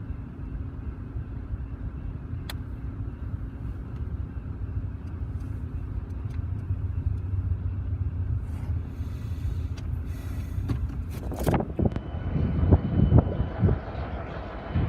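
Steady low vehicle rumble with a faint steady hum; about eleven seconds in, loud irregular thumps and buffeting break in.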